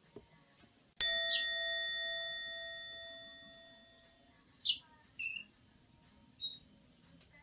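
A single struck bell about a second in, ringing out and fading over about three seconds: the 'chiin' sound effect of a Buddhist rin bell, the cartoon cue for dejection. A few short high chirps follow.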